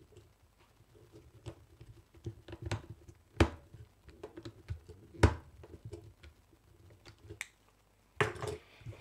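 Hands working wires into the screw terminals of a contactor and overload relay: irregular small plastic clicks and taps, with two sharper knocks about three and a half and five seconds in, and a louder cluster of knocks near the end.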